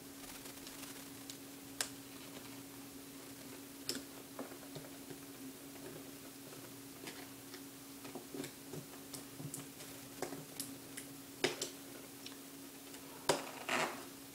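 Scissors snipping and clicking at a cardboard box and its packaging: scattered sharp clicks, busier in the second half, with the loudest ones and a short scrape near the end. A steady hum from the recording lies under it all.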